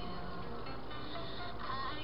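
Background music with several held melodic lines and a wavering, voice-like line near the end.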